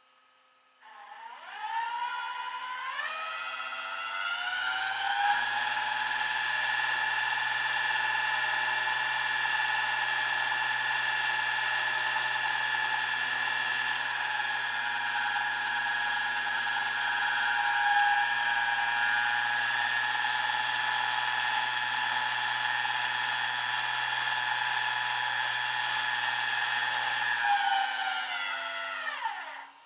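A motor whining: it spins up with a rising pitch about a second in, runs at a steady pitch for over twenty seconds, then winds down and stops near the end.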